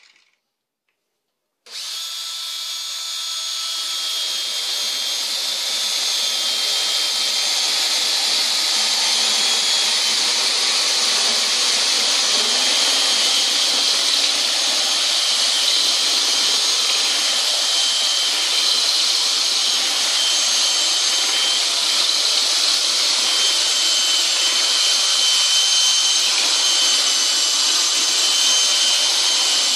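Cordless drill turning a Dry Magic blind-hole bit at 1,800 rpm, grinding dry into hard tile. The steady grinding starts abruptly about two seconds in and builds a little over the next few seconds.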